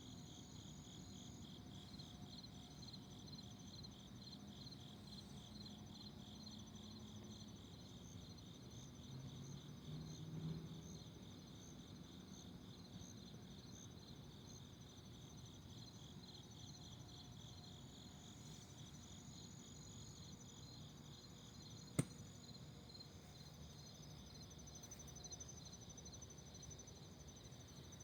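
Crickets and other night insects calling in a faint, steady chorus, one of them pulsing at about four chirps a second over a higher continuous trill. A single sharp click sounds about three quarters of the way through.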